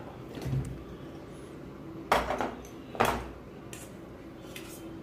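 A steel spoon and stainless steel plates and bowls clinking and knocking as food is spooned from plate to bowl. There are a few scattered knocks, the loudest about two and three seconds in.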